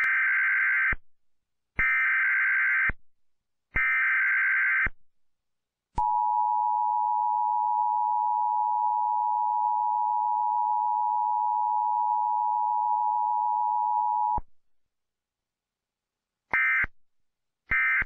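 Emergency Alert System tones: three data bursts of about a second each, two seconds apart, then a steady two-pitch attention tone held for about eight seconds, then short data bursts beginning near the end.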